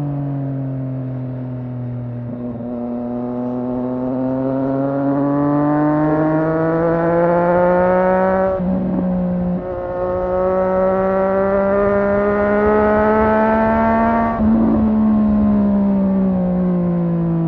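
Triumph Street Triple 765 R's inline three-cylinder engine pulling under acceleration. The pitch climbs over several seconds, breaks briefly about halfway through and climbs again, then falls over the last few seconds.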